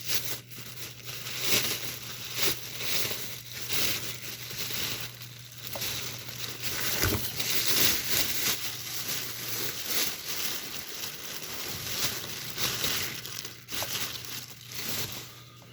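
Packaging crinkling and crackling as it is handled and opened, a continuous run of irregular crackly bursts.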